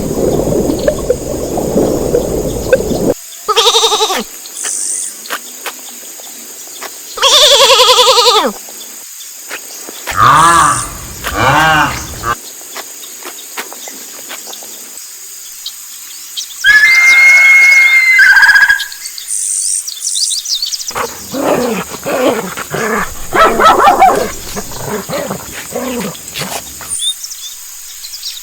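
A few seconds of music, then a string of separate animal calls with quiet gaps between them: a short cry, a longer call, two wavering calls close together, a high-pitched cry, and a run of shorter calls near the end.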